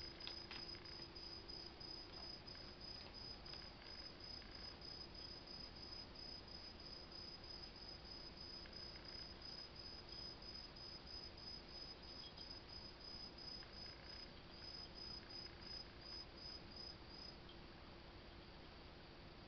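Faint insect chirping: a fast, even train of high-pitched chirps that stops near the end, over a low steady hum.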